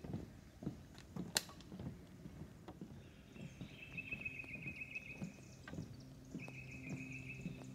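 Footsteps on a wooden boardwalk, a step about every two-thirds of a second, with one sharp click a little over a second in. From about three seconds in a high, even trill sounds twice, each about one and a half seconds long.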